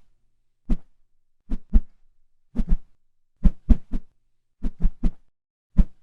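Sound-effect track of short, dull thumps, mostly in pairs about a fifth of a second apart, repeating at uneven intervals roughly once a second.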